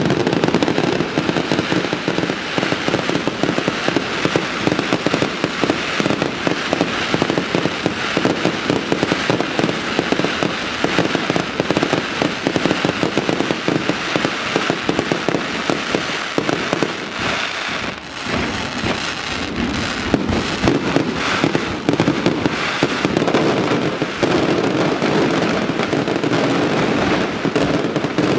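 Fireworks display: a continuous barrage of rapid, closely packed bangs, with no pause throughout.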